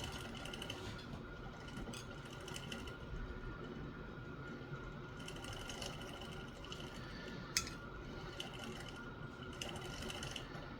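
Faint small metal clicks and handling noise of revolver parts as a Smith & Wesson Model 629's cylinder stop and its spring are worked into the frame, with one sharper click about seven and a half seconds in.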